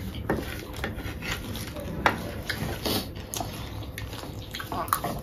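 People eating chatpate, a crunchy spicy puffed-rice snack: scattered short clicks and scrapes of spoons on plates and mouth noises of chewing.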